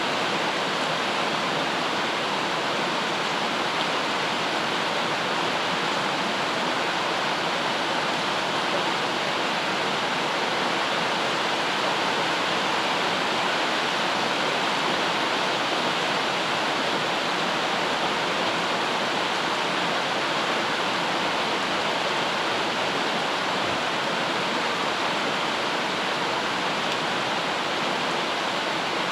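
Steady rain white noise: an even, unbroken hiss with no single drops or changes.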